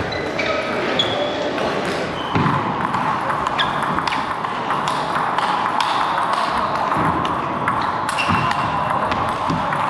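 Table tennis ball being played in a rally: short, sharp clicks and pings as it strikes the paddles and the table, about every half second to a second, over a steady background noise that comes up about two seconds in.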